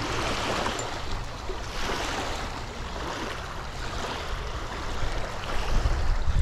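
Lake water lapping at the bank with wind rumbling on the microphone, the gusts growing stronger near the end.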